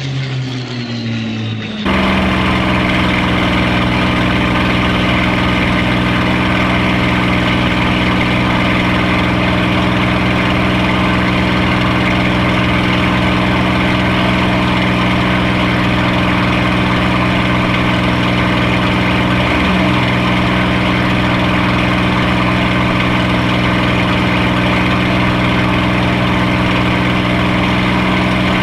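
Supermarine Spitfire's Rolls-Royce Merlin V12 passing by, its pitch falling, then from about two seconds in the Merlin's steady drone heard from inside the cockpit in flight.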